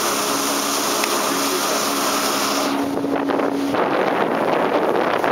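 Yamaha outboard motor running at speed, a steady engine hum over the rush of the wake. About three and a half seconds in the engine tone fades, leaving a steady rush of wind and water.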